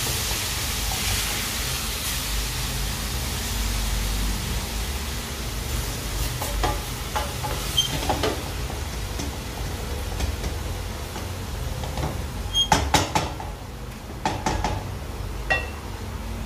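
Food sizzling steadily in a pan, with a utensil stirring and knocking against the pan a number of times in the second half.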